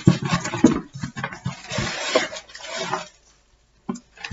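Crinkle-cut paper shred packing rustling and the cardboard box knocking as hands dig through it and lift an item out. It dies down after about three seconds, with a couple of short clicks near the end.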